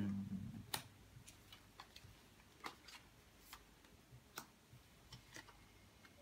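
Soft, irregular clicks and taps of Magic: The Gathering cards and plastic card sleeves being handled as a deck is re-sleeved, with a brief low hum right at the start.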